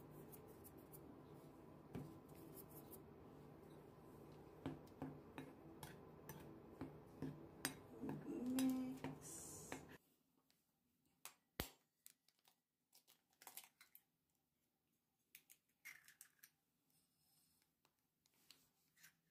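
A metal fork and plastic measuring spoon lightly clicking and scraping in a ceramic mixing bowl of flour and spices, over a low steady hum that stops abruptly about halfway. Then near silence with a few soft clicks and one sharp tap as an egg is cracked.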